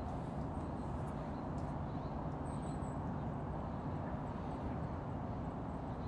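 Steady low rumble of outdoor background noise, with a faint steady hum underneath.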